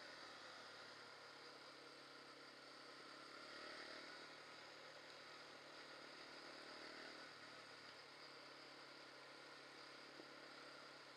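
Faint, muffled quad bike engine running while riding, its note shifting a couple of times, under a steady hiss.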